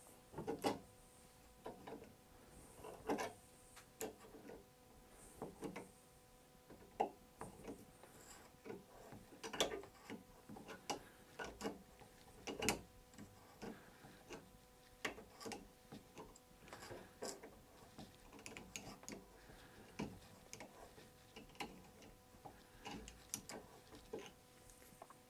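Needle-nose pliers working a broken steel screw loose from a hardwood chair leg: irregular small clicks and scrapes of metal on metal and the screw grinding in the wood, a few every second, as it is twisted out.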